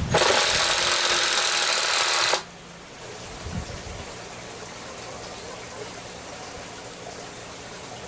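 A power tool runs at speed for about two seconds, then cuts off abruptly, leaving a low steady background hiss.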